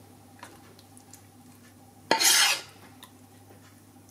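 A spoon scraping meat sauce out of a frying pan: one loud scrape about two seconds in, with a few faint clicks of the spoon against the pan around it.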